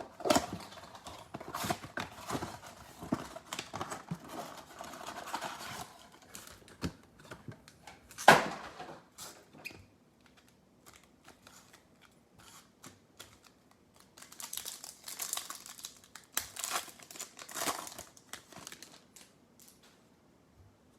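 Packaging being torn open and crinkled as a trading-card box and its card packs are opened. The crinkling comes in bursts, with one loud sharp rip about eight seconds in and a quieter stretch in the middle.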